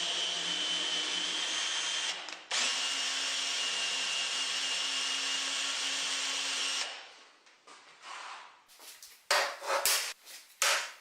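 Electric drill running steadily on steel with a high whine, stopping briefly about two seconds in, starting again and winding down after about seven seconds. Several short sharp noises follow near the end.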